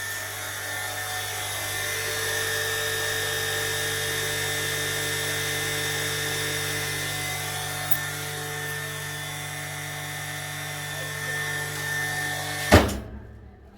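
Industrial chamber vacuum sealer's vacuum pump running with a steady hum, then cutting off suddenly with a sharp clack about a second before the end, followed by a few lighter clicks.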